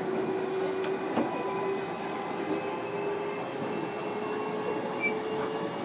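Cabin running sound of a JR Kyushu 305 series electric train's motor car: the traction motors whine in a steady tone that rises slowly in pitch, over a constant rumble of wheels on rail. There is a sharp knock about a second in.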